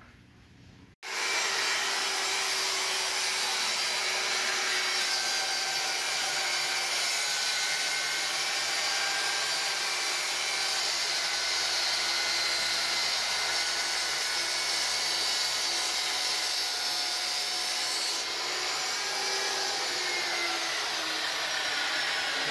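Portable table saw running and ripping laminate flooring planks lengthwise into narrow strips: a steady, loud whine of motor and blade that starts abruptly about a second in.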